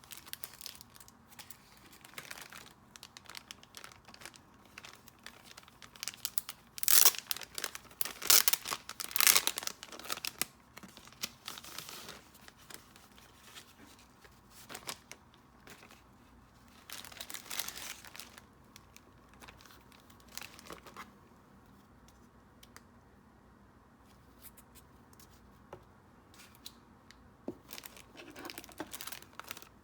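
Packaging wrapping being torn open and crinkled by hand in irregular rustling bursts. It is loudest for a few seconds around seven to ten seconds in, with another spell a little past halfway.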